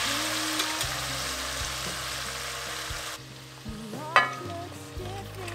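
Boiled spaghetti sizzling and hissing as it lands in hot olive oil and frying garlic in a stainless steel pan, the sizzle cutting off suddenly about three seconds in. Soft background music runs underneath, and near the end there is a single sharp metallic clink.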